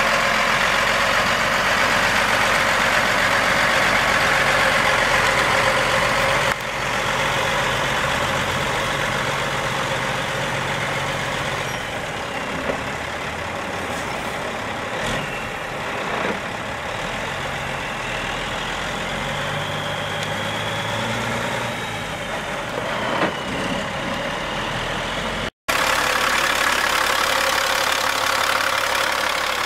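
The Caterpillar C12 diesel engine of a 2000 Peterbilt 377 semi truck idling steadily. It gets somewhat quieter about six seconds in, and after a brief break near the end it is louder, heard close up at the open engine bay.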